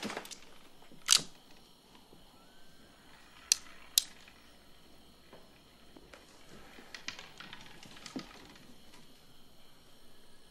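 A few sharp clicks and knocks from a revolver and a tin cup being handled at a card table, over quiet room tone. There is one loud click about a second in, two quick clicks about half a second apart around three and a half seconds, and a run of softer ticks near eight seconds.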